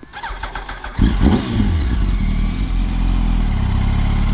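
Inline-four engine of a 2006 Yamaha R1 with GYTR slip-on exhausts pulling away: the note rises over the first second, jumps in loudness about a second in as the throttle opens, then runs on steadily under way.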